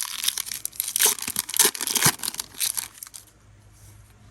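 Foil Pokémon card booster pack wrapper being torn open and crinkled by hand, a dense run of crackling that stops about three seconds in.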